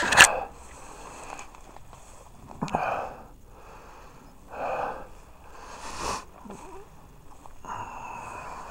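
A man breathing hard close to the microphone: about four noisy breaths a second or two apart, after a sharp knock right at the start.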